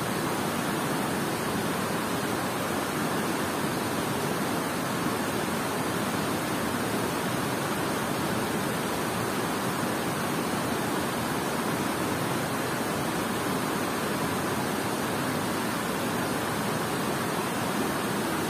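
Steady rush of water pouring over a concrete dam spillway and churning in the strong current below it.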